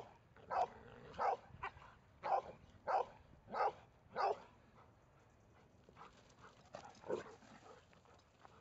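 A dog barking repeatedly in play, about seven short barks at a steady pace in the first four and a half seconds, then one more bark about seven seconds in.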